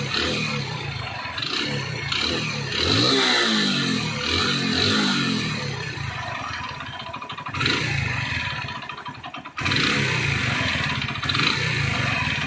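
Hero Splendor Plus's single-cylinder four-stroke engine running and being revved up and back down a few times, with excessive mechanical noise from the engine that the mechanic links to piston and crank wear.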